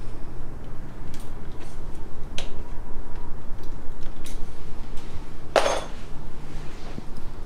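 Light metallic clicks and clinks from a bicycle chain and rear derailleur being handled, with one louder ringing clink about five and a half seconds in.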